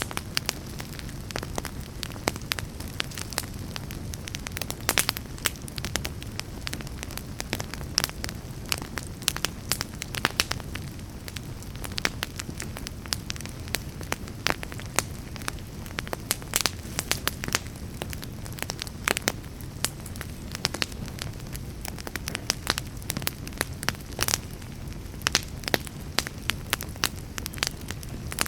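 Wood fire burning in a fireplace: a steady low rumble of flames with frequent, irregular sharp crackles and pops from the burning logs.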